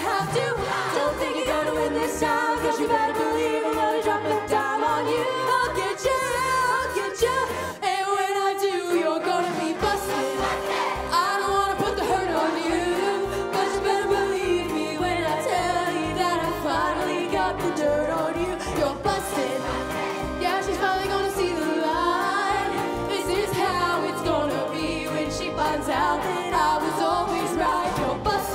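A large ensemble singing a pop song over an accompaniment with a steady beat. The beat drops out for about two seconds, about eight seconds in, while the voices carry on.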